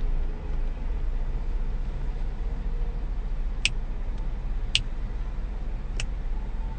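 Low, steady rumble of a car running, heard from inside the cabin. Three sharp clicks come a little over a second apart, starting past the middle.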